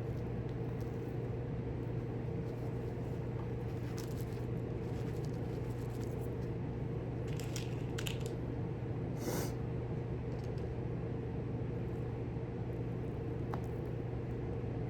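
Steady low hum with two fixed pitches, with a few faint small clicks and a short scratchy rustle about nine seconds in, typical of small parts being handled at a workbench.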